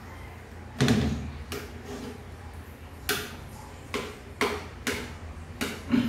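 A bowl knocking down onto a table about a second in, then spoon and fork clinking and scraping against a plate in a string of sharp clicks.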